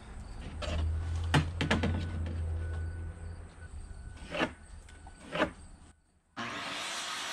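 Wooden boards knocked and shifted on a folding work table, several sharp knocks as a barn-board piece is laid out and marked. Near the end, after a brief silence, a steady whir starts: a handheld circular saw running.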